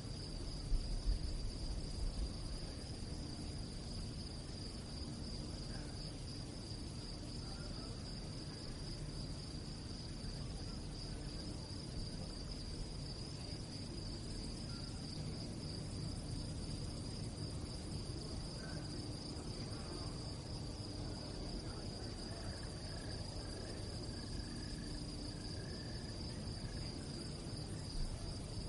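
Crickets chirping at night, a continuous high, finely pulsing trill that holds steady, over a low background rumble.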